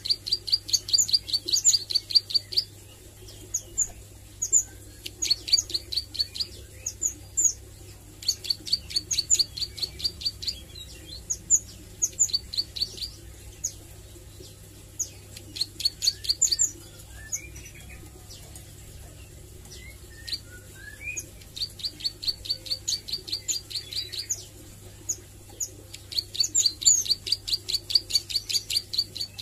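Caged plain prinia (ciblek sawah) practising its song: runs of rapid, sharp, high repeated notes, about ten a second, in bouts of two to three seconds with short pauses between them, and a few softer gliding notes around the middle.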